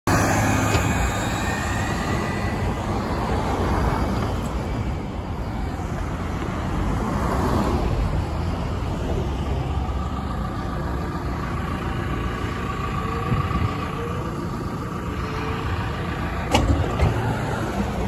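Steady road traffic on a busy city street, with a city bus close by near the start. A single short click near the end.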